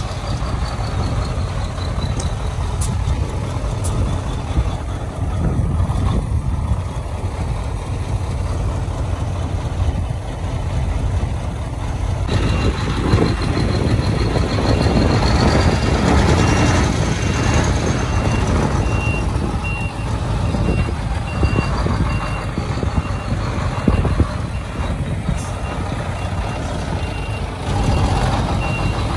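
Heavy sand-hauling truck's diesel engine running with a steady low rumble. About twelve seconds in, a reversing alarm starts beeping at an even rate and keeps on.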